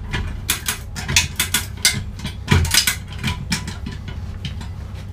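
Lever hoist (come-along) ratcheting as its handle is pumped, giving a run of sharp metal clicks in quick clusters while it lifts a heavy stripped engine block.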